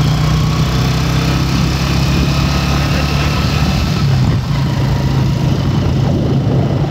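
Small motorcycle engine running steadily at cruising speed while riding, with wind and road noise over the microphone.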